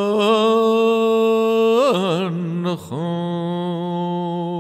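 A solo male voice chanting in long held tones on wordless syllables: a steady note, a wavering turn in pitch about two seconds in, a brief break, then another long held note at about the same pitch.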